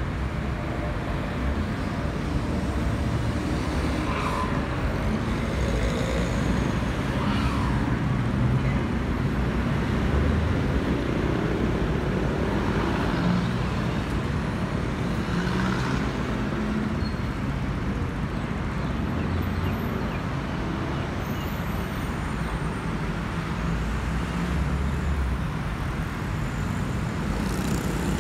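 Steady low rumble of a CFM56-powered Airbus A320 jet airliner passing high overhead, mixed with road traffic, with a few cars whooshing by.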